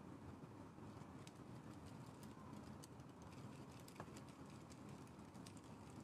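Faint scattered light clicks and scrapes of a metal palette knife on the palette as oil paint is mixed, over a low steady room hum; one click about four seconds in stands out a little.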